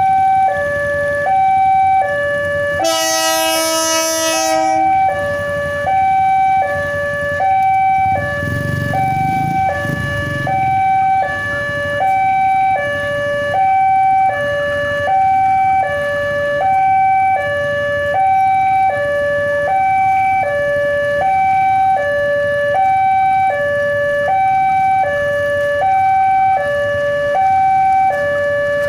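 Railway level-crossing alarm sounding from the crossing's loudspeaker: an electronic two-tone signal steadily alternating high and low, about one high-low cycle a second. About three seconds in, a horn sounds over it for about two seconds.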